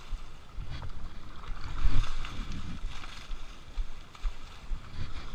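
Water splashing as buckets of river water are thrown over an elephant and people wade in the shallow river, with a louder splash about two seconds in.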